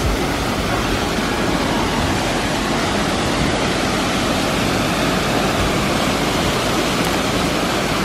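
Steady rushing of a multi-tiered alpine waterfall, water pouring down rock ledges into a boulder-strewn stream.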